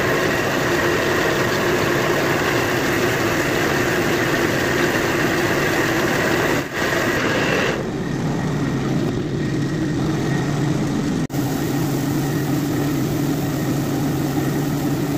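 Steady hum of a running air compressor under the hiss of a compressed-air paint spray gun. The hiss thins out about eight seconds in, and the sound breaks off sharply twice for an instant.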